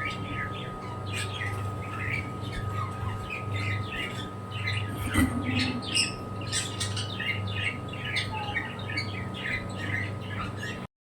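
Pet birds calling over one another in a quick, continuous stream of short chirps, over a steady low hum, with a single knock about five seconds in. The sound cuts off suddenly just before the end.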